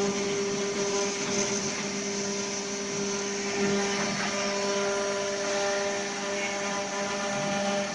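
Spindles of a multi-spindle CNC wood router running, a steady whine over a noisy hiss.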